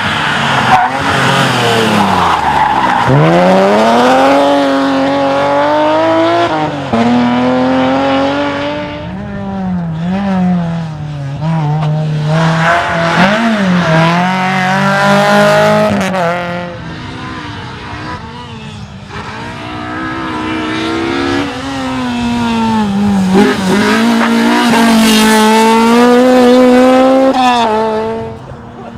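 Rally cars at full throttle on a special stage: each engine's note climbs through the gears and drops sharply on lift-off and braking, over several separate passes one after another.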